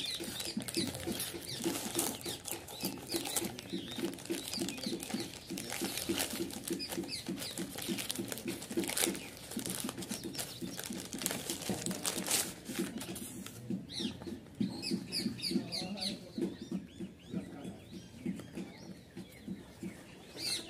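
Plastic courier mailer bag being torn open and crinkled by hand, with small birds chirping in the background, more clearly in the second half.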